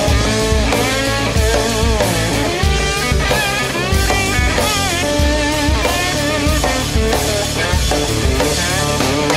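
Rock band playing: electric guitar with bent, wavering notes over a steady drum beat and bass.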